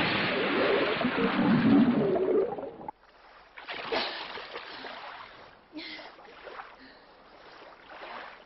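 Cartoon sound effects of a plunge into the sea: a loud, rushing underwater bubbling that cuts off suddenly about three seconds in, then a splash as a swimmer breaks the surface, followed by quieter water sloshing and a small splash.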